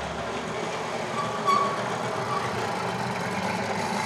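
Small moped engine running steadily as the moped rides up and approaches, with a brief higher-pitched squeak about a second and a half in.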